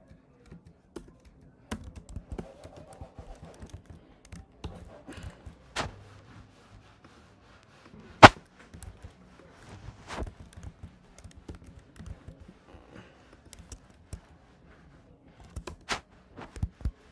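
Scattered clicks of computer keyboard keys during typing, irregular and light, with one much louder knock about eight seconds in.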